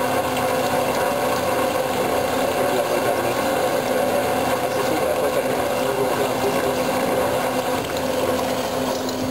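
Bianco 330SA metal-cutting band saw running steadily, its blade cutting through a square steel tube; a constant machine hum with a few steady tones over the grinding noise of the cut.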